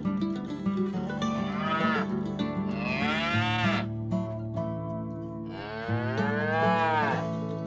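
Cattle mooing three times, a short call and then two long ones, each rising and then falling in pitch, over background music.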